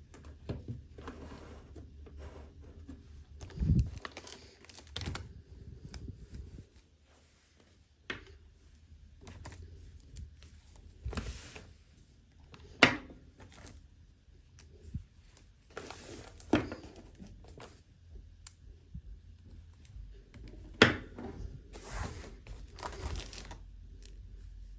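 Hands unpacking a toy: packaging rustling, crinkling and tearing, with occasional sharp clicks of small plastic parts.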